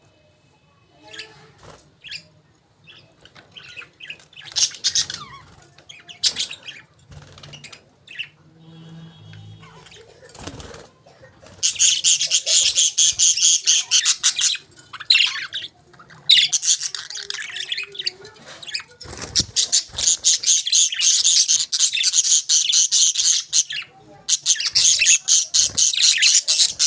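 Budgerigars chirping: scattered short chirps at first, then from about halfway in a loud, fast, continuous chattering warble in long bouts with brief pauses.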